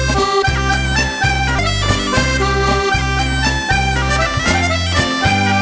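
Accordion and bagpipe playing a lively traditional Auvergne folk dance tune, with a regular pumping bass under the melody.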